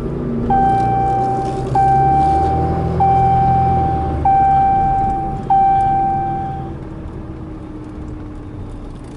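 Ram 2500 pickup's dashboard warning chime dinging five times, about one and a quarter seconds apart, each ding fading out. Under it is the low drone of the truck's 6.7 L Cummins turbo-diesel straight-six under way, pulling and then easing off about four seconds in.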